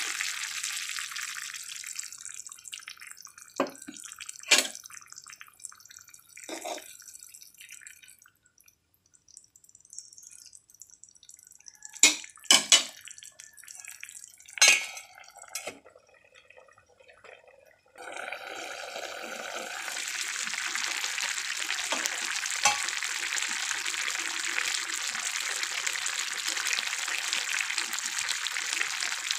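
Water poured into a hot pan of frying ash gourd, a hiss that fades over the first couple of seconds. A few sharp clinks and knocks follow, with quiet between. Past the halfway point, the thin curry is simmering in the pan with a steady hiss.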